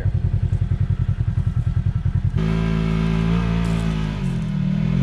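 Polaris off-road vehicle's engine in low-range four-wheel drive, first running at low revs with an even pulsing beat, then throttled up about two and a half seconds in and pulling steadily, its pitch sagging and recovering near the end.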